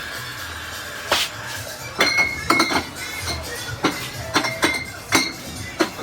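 Glassware clinking and knocking, about nine sharp clinks with short ringing, over background music.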